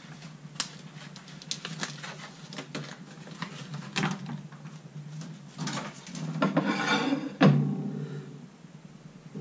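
Packaged sponge cake layers being handled: light taps and knocks against the plastic container and plate, and a crinkling rustle of the foil separator sheet being peeled off about six to seven seconds in.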